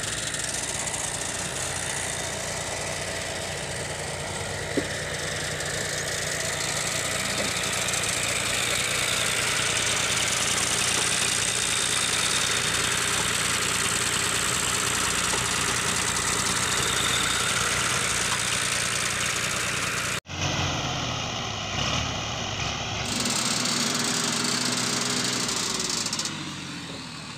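Farm tractor's diesel engine running steadily under load while its rear wheels dig into mud pulling a loaded trolley. About twenty seconds in, the sound cuts abruptly to a tractor engine running more quietly while its tipping trolley unloads.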